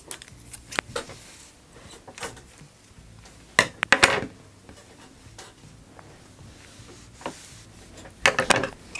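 Fabric being handled and smoothed on a tabletop, with scattered light clicks and knocks from scissors being picked up and set down. Short clusters of louder knocks come about three and a half seconds in and again near the end.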